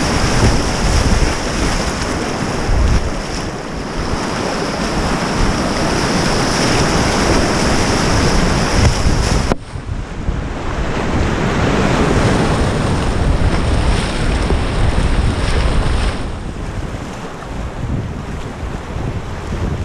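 Whitewater rapids rushing and splashing around a whitewater kayak, heard close up from a GoPro on the paddler, with water washing over the deck and wind on the microphone. The sound changes abruptly about halfway through and grows quieter in the last few seconds as the water calms.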